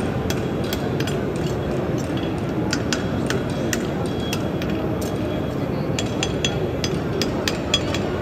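Farrier's forging hammer striking iron in quick, uneven blows with a short metallic ring, about two to three a second, over a steady background murmur.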